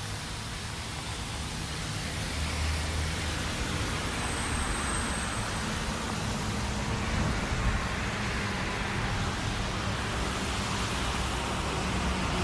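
Steady rushing noise of rain and wind, with wind rumbling on the microphone.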